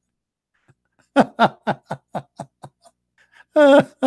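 A man laughing: a run of short 'ha' pulses, about four a second, starting about a second in, then a longer drawn-out laugh near the end.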